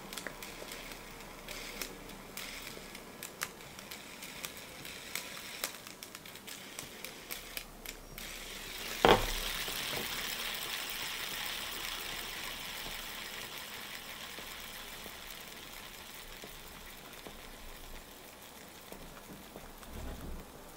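Scattered light clicks of small items being handled, then about nine seconds in a sharp flick and the hissing whir of a pop-it fidget spinner spinning on its bearing, slowly fading as it spins down.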